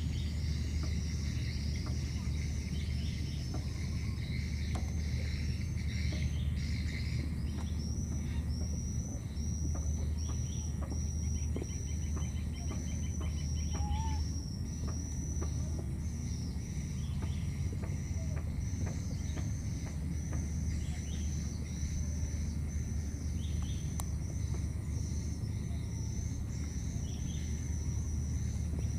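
Insects chirping steadily in a high, repeating pattern, with a few short faint bird-like whistles, over a constant low rumble.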